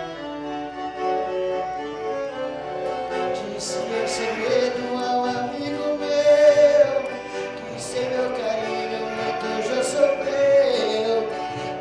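Piano accordion playing long held chords, with a wavering melody line over it that swells in the middle and again near the end.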